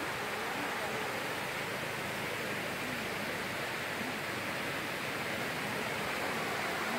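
Steady rushing of shallow running water flowing through the forest, an even hiss that holds at one level throughout.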